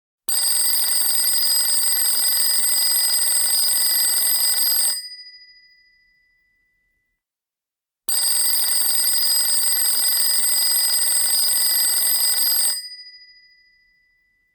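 An alarm bell rings loudly twice, each spell about four and a half seconds of rapid ringing, with the bell ringing on and fading out after each. It signals that the 15-second countdown has reached zero.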